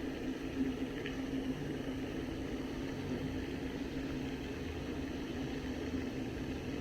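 A steady low mechanical hum over an even rumbling noise, with one faint tick about a second in.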